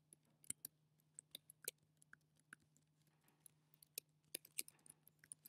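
Faint, irregular clicking of computer keyboard keys as code is typed and edited, over a low steady hum.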